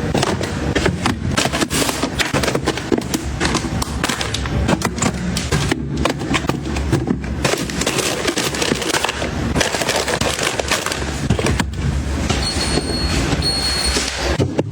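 Items and packaging being handled and set down: a dense, continuous run of clicks, knocks and crinkling. Near the end come two short high electronic beeps.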